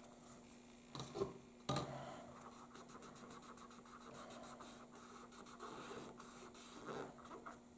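Faint scratching and light tapping of a small hand tool worked against the surface of a sheet of craft plastic, with a few sharper clicks in the first two seconds and again near the end.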